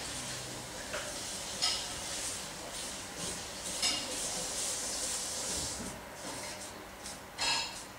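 Cotton wad rubbing acrylic resist onto vegetable-tanned leather, a soft scrubbing hiss, broken by a few light knocks, the loudest near the end.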